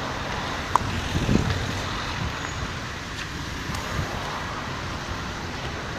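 Road traffic on a city street: a steady rush of cars going by, with one passing close about a second in and a brief sharp click just before it.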